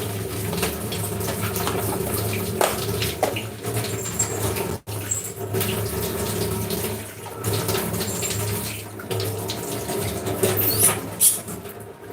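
Water running steadily from a tap into a sink, with a few clatters and knocks, the loudest near the end.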